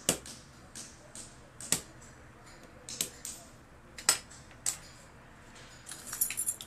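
Sharp metallic clicks and taps of small hand tools and lock parts on a GMC key lock cylinder as its tumbler pins are fitted, spaced irregularly, about one every half second to second, with a quick run of small clicks near the end.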